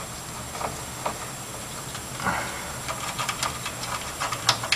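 Small irregular clicks and taps of screws being worked out of a plasma TV's Y-board mounting, over a faint steady hum. The clicks come thicker about three seconds in, with one sharper click near the end.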